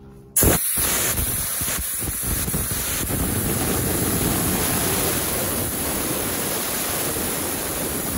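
Homemade sandblaster, a cheap compressed-air gun drawing sand from a plastic bottle, blasting paint off a truck hood: a loud, steady hiss of air and sand that starts suddenly about half a second in.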